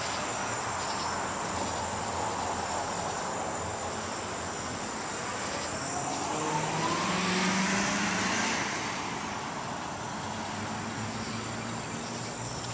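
Crickets chirping steadily in one high, unbroken tone. A motor vehicle passes about six seconds in, with a rising whine, and is loudest at around seven to eight seconds before fading.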